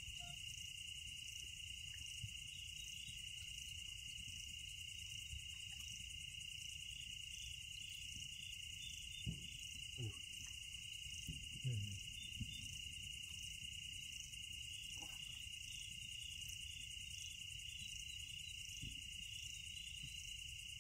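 Night chorus of crickets: a steady high trill with a faster, pulsing layer above it, over a low background rumble. A few soft thuds break in between about nine and twelve seconds in.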